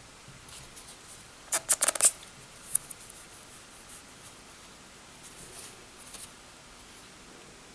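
A small white wipe handled and rubbed over a freshly fitted phone screen protector: a quick run of sharp crinkling clicks about a second and a half in, then soft, faint rubbing on the screen near the end.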